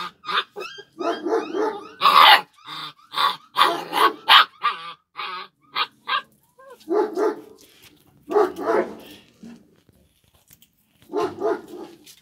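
Kangal puppy barking: a quick run of high yapping barks through the first five seconds, then a few more short bursts spaced a second or two apart.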